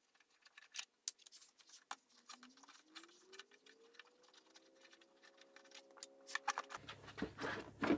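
Faint scattered clicks and taps of plastic and metal as gloved hands work the latches holding a 1999 Chevrolet Lumina headlight assembly. Under them a faint hum rises in pitch about two seconds in, then holds steady.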